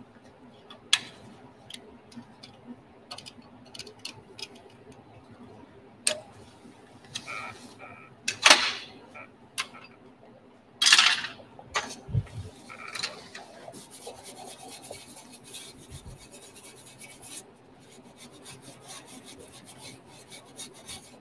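Hand tools scraping and clinking against the painted metal panel of an aircraft engine starter cart as the paint around its fasteners is worked loose, with louder scrapes about eight and eleven seconds in. A steady low hum runs underneath.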